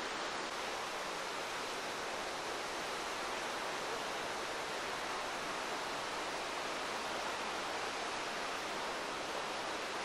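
River water flowing over rocks: a steady, even rush with no change.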